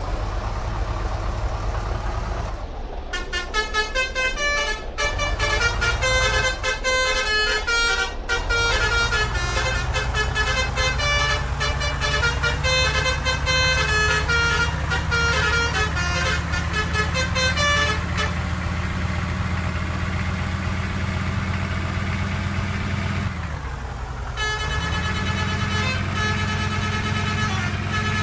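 Indonesian bus "telolet" musical horn playing a quick tune of changing notes over the bus's running engine. After a short gap, a held chord of several horn notes sounds near the end.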